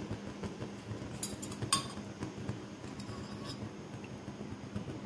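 A metal spoon clinking against metal utensils while oil is spooned into an iron tempering ladle. There are a few sharp clinks about a second and a half in, the loudest of them, and a couple more about three seconds in.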